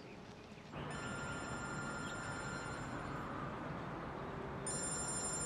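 A mobile phone ringing twice with a high electronic ringtone, the first ring starting about a second in and the second near the end, over steady street background noise.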